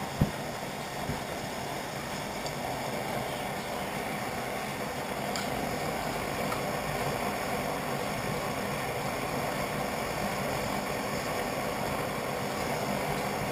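Pressure stove burner running with a steady rushing sound under a small pan of melting wax and kerosene, with a few light clicks and taps of metal tools against the pan.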